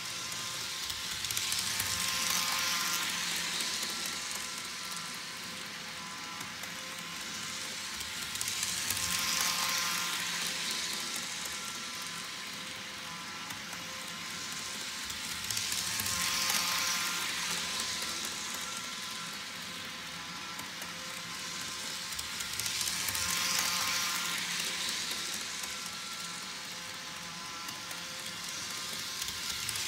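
Bachmann HO scale model train running laps around an oval of track: the steady running noise of its motor and wheels on the rails. It grows louder about every seven seconds as the train passes close by, then fades as it moves off around the loop.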